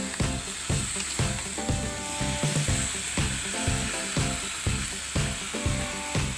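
Background music with a steady beat of about two a second, over the hiss of eggplant, fish and spiced paste sizzling in a wok as a metal spatula stirs them.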